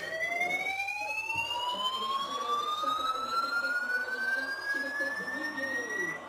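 Siren-like sound effect: a single tone rising slowly and steadily in pitch over several seconds, then cutting off abruptly near the end.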